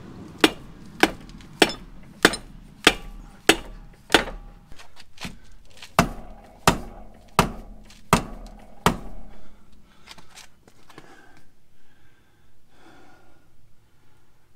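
A dead blow hammer striking the bell cap of an RCV one-piece front axle shaft, about a dozen steady blows at roughly a second and a half apart with a short pause after the seventh. The blows drive the cap up over the CV bell at the steering knuckle, which takes force. The hammering stops about nine seconds in.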